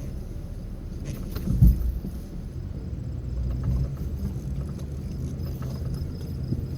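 Ford F150's 5.0-litre V8 engine running under load as the truck strains on a tow strap to pull out a stubborn stump, with a heavy low thud about a second and a half in and the engine working harder a couple of seconds later.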